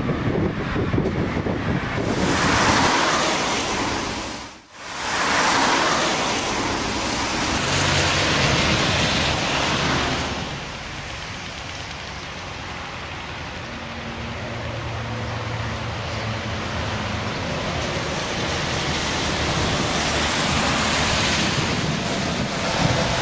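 Motorway traffic: vehicles passing one after another in swells of tyre and engine noise, with a short dip almost to nothing about five seconds in.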